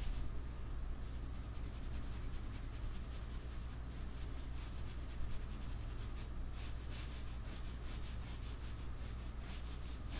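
Pencil scratching across paper in rapid, repeated short shading strokes, easing off briefly in the middle, over a steady low hum.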